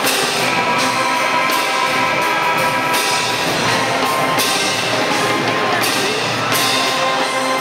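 College pep band playing loudly: trombones, trumpets and sousaphones holding chords, with drums and cymbal crashes about every second and a half.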